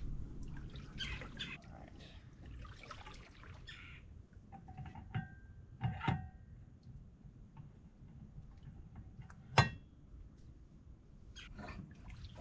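Propeller change on a Mercury outboard's lower unit: two short metallic clinks with a brief ring about five and six seconds in, then a sharper, louder knock near the end, over faint water sloshing.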